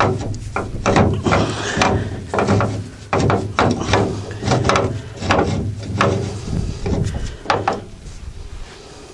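Repeated knocks and rubbing, roughly two a second, then easing off near the end, as the steel drawbar and hitch eye of a homemade walk-behind-tractor trailer adapter are handled.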